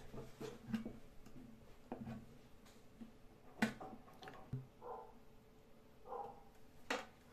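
Faint handling noises: scattered light clicks and taps as the metal tip of an indicator screwdriver is touched to battery terminals and the batteries are moved. The sharpest clicks come about three and a half seconds in and near the end, with two short squeaky sounds in between.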